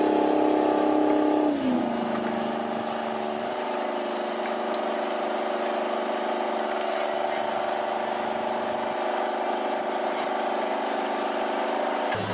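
Large articulated tractor's diesel engine running hard under load while pulling a wide multi-furrow plough; its engine speed drops about a second and a half in, then holds steady.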